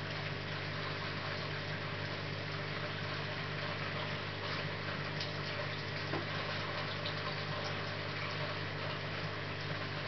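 Steady low hum of an aquarium's pump and filter, with an even hiss of moving water and a few faint ticks.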